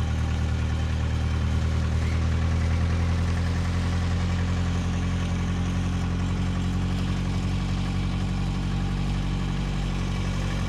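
Small diesel vehicle engine running at a steady, even speed, a low drone heard from aboard the moving vehicle.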